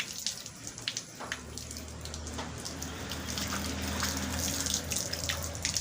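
Rain falling, with scattered drops ticking on nearby surfaces. About a second in, a steady low hum starts under it.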